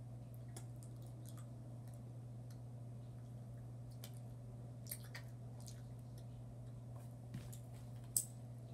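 A person chewing a jelly bean with the mouth close to the microphone: faint, wet, squishy mouth clicks, over a steady low hum. A sharper click comes near the end.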